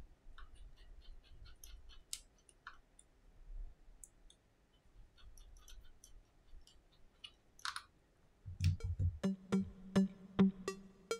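Faint, scattered small clicks and taps from hands handling a smartphone and plugging a charging cable into it. About three-quarters of the way through, background music with a steady beat starts.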